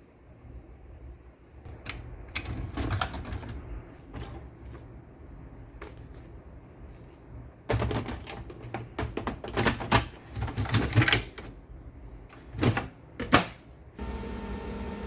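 Irregular clicks, rustles and knocks of a new printer and its packaging being handled during unboxing, thickest in the middle, with two sharp knocks near the end. About a second before the end, a steady hum with a few held tones comes in.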